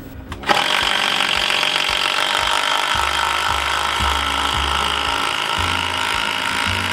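Impact driver hammering a heavy-duty ledger lock fastener through a wooden post into a tree trunk. It starts abruptly about half a second in and runs on steadily as the fastener is driven.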